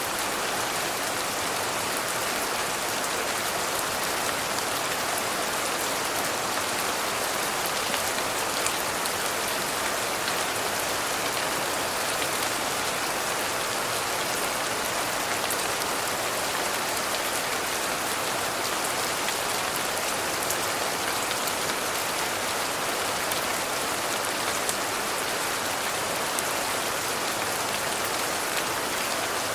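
Steady rain: an even, dense hiss with many fine drop ticks, unchanging throughout.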